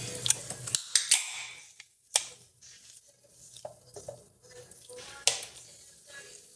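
A few sharp clicks and taps over faint hiss. The loudest comes about two seconds in, with another a little after five seconds.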